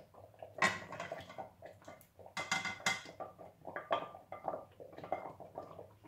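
Irregular clinks, taps and scrapes of a wooden spoon and a china plate against a pan as braised beef slices are pushed off the plate into the sauce, the sharpest clinks about a second in and around two and a half seconds in.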